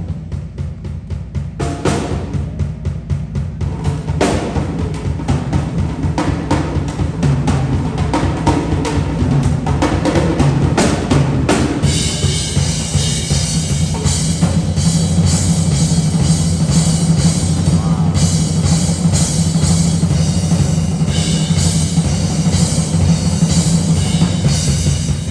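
Live band music led by a drum kit, with rapid snare and bass-drum hits over a steady bass line. Cymbals join about halfway through.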